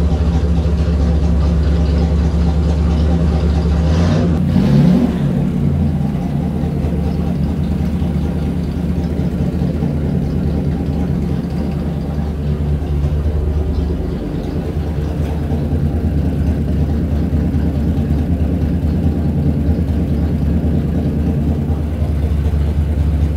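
Chevrolet 327 small-block V8 running steadily on an engine dyno at a low speed during warm-up and carburetor tuning. Its speed changes briefly about four to five seconds in, and it settles a little lower and quieter about halfway through.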